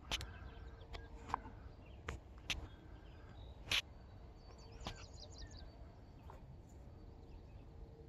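Quiet outdoor ambience with faint high songbird chirps and a low steady background hiss. It is broken by several short sharp clicks, the loudest about four seconds in.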